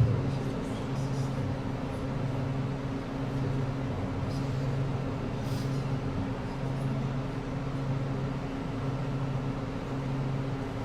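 A steady low hum that pulses about once a second, under a faint murmur of many women quietly speaking names at once.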